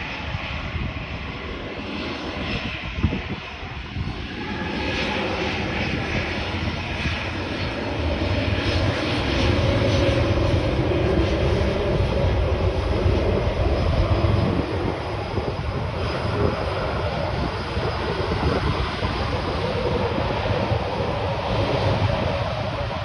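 Jet engines of a Ryanair Boeing 737 as the airliner goes by: a dense rumbling roar that swells about a third of the way in, is loudest around the middle, then eases slightly and holds steady.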